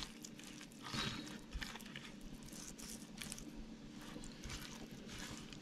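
Faint wet squishing and smearing of fingers rubbing a thick spice-paste marinade over whole raw fish, with a few small clicks and a faint steady hum underneath.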